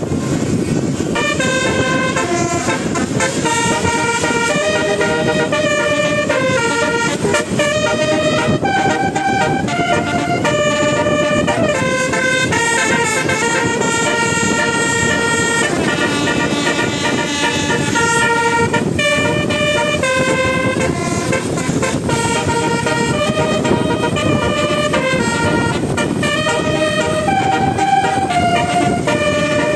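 Bus 'telolet' multi-tone horn playing a tune of held notes that step from pitch to pitch, phrase after phrase, over a steady low rumble.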